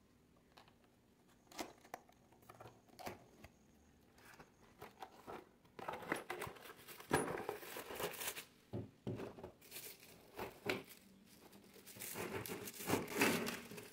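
Cardboard box opened by hand: a few light clicks and taps as the flap is worked open, then rustling cardboard and crinkling plastic as the plastic-wrapped stand parts are slid out, loudest about seven seconds in and again near the end.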